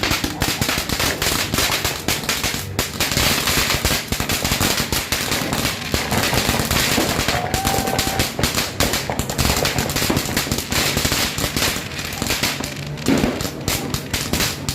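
Firecrackers going off in rapid, continuous strings, many sharp bangs overlapping into a dense crackle.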